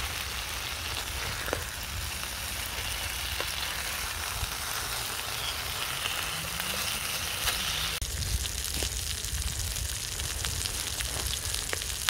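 Beef burger and bacon frying in oil in a Trangia pan: a steady sizzle with occasional small pops of spitting fat.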